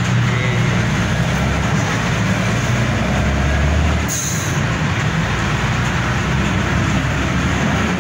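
Steady engine drone and road noise of a city bus heard from inside the cabin while it drives, with a brief hiss about four seconds in.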